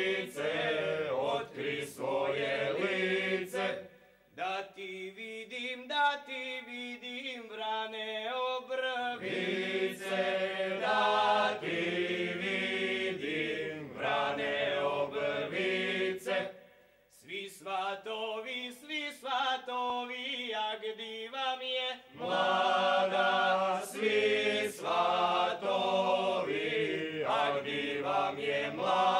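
Folk ensemble choir, men's voices in front, singing a Slavonian carnival song in chorus in long held phrases, with short breaths between phrases about four seconds in and again around seventeen seconds.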